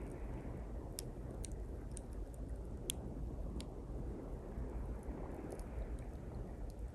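Small campfire of thin pine twigs crackling, with a few sharp pops, the loudest about three seconds in, over the steady low wash of sea waves on the shore, which swells and fades.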